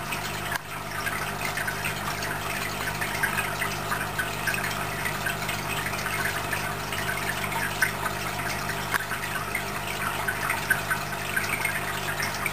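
Aquarium water running: a steady low hum, typical of a filter or pump motor, under continuous bubbling and trickling.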